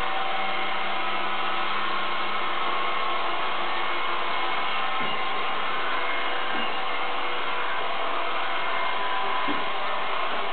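Robot vacuum cleaner running steadily, its motor and suction fan whirring as it drives across a tiled floor. A low hum drops out about halfway through, and there are a few light knocks as it runs along the cabinet base.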